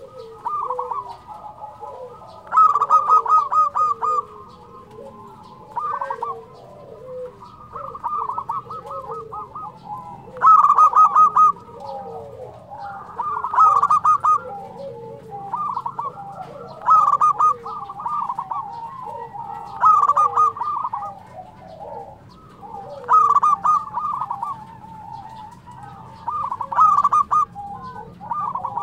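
Local zebra dove (perkutut) in full song: loud phrases of rapid staccato cooing notes repeat about every three seconds, with softer, lower-pitched cooing notes between them.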